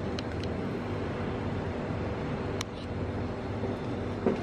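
Steady background hum and noise of a convenience-store checkout. A single sharp click comes a little past halfway, and a short knock near the end.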